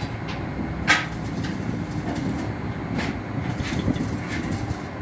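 Steady low rumble of running machinery, with scattered light metallic clicks and one sharp clank about a second in.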